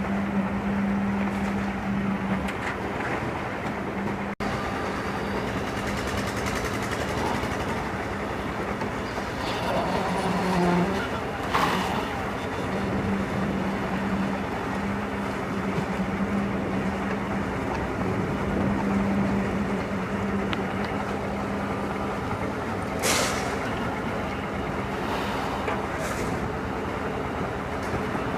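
Heavy machinery engine running steadily at a concrete roof pour, with a constant hum and a few short knocks.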